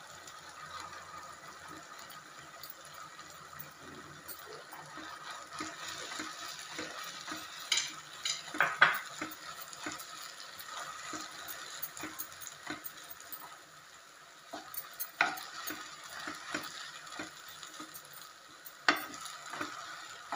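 Wooden spatula stirring grated coconut and soaked garden cress seeds in a nonstick pan, scraping and knocking against the pan over a low sizzle of ghee. The scrapes are loudest about eight to nine seconds in, and again around fifteen and nineteen seconds.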